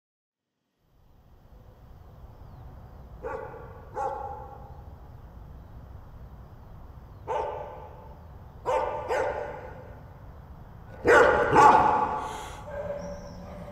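A dog barking: seven short barks, mostly in pairs, with the last two the loudest. Under them is a low steady rumble that starts about a second in.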